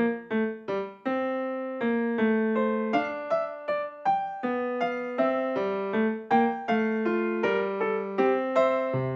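Background music: a piano-like electric keyboard playing a steady run of separate struck notes, several a second, each fading quickly.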